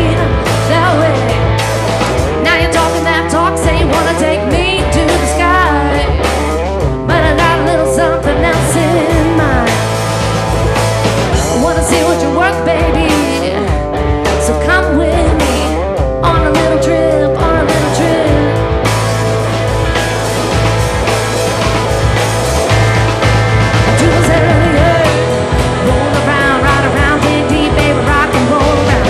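A rock band playing live, led by electric guitar, with a woman's voice singing.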